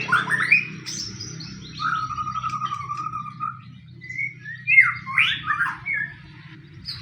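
White-rumped shama (murai batu) singing in its aggressive fighting mode: rapid, rough phrases of sweeping notes at the start and again around five seconds in, with a lower wavering whistle in between. A low steady hum runs underneath.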